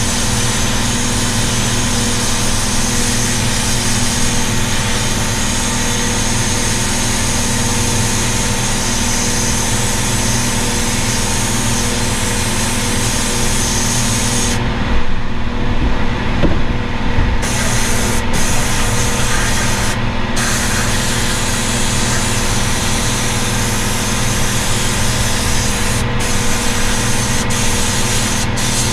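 Sandblaster's air-and-abrasive blast hissing steadily over a constant machine hum. The blast stops for about three seconds around the middle, then cuts out briefly a few more times near the end while the hum carries on.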